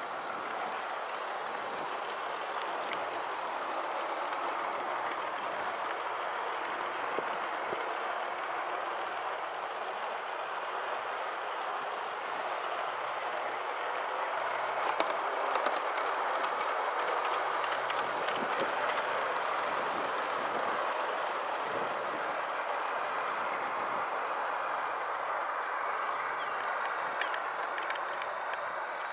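G scale model Class 66 diesel locomotive running along garden railway track: a steady whir of its electric motor, gears and wheels on the rails, with scattered clicks from the wheels over the rail joints. It grows a little louder about halfway through as the train passes close.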